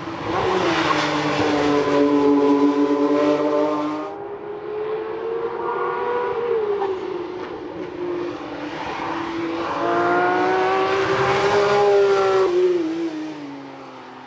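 Porsche 911 GT3 RS prototype's naturally aspirated 4.0-litre flat-six running hard on track. Its pitch drops steeply at the start, then rises and falls in long sweeps as the car accelerates and lifts. It is loudest twice and fades away near the end.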